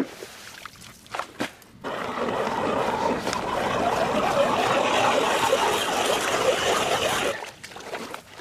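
Hand ice auger being cranked, its blades grinding steadily through lake ice for about five seconds, after a few crunches in the snow.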